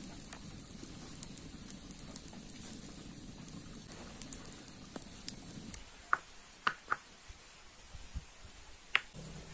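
Steady outdoor hiss, then, about six seconds in, a handful of sharp stone clicks a fraction of a second apart as rocks are picked up and knocked together at the edge of a shallow rock pool.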